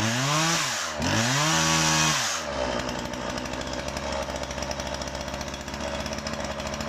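Husqvarna 137 two-stroke chainsaw revved twice, its pitch climbing and dropping back each time, then settling into a steady idle.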